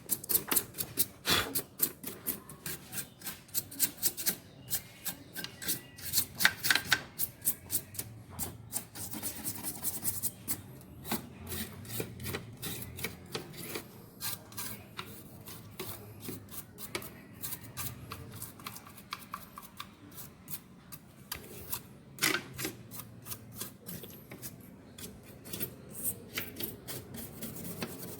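A brush scrubbing over the LG TV's parts to clean off dust, in runs of quick, scratchy strokes.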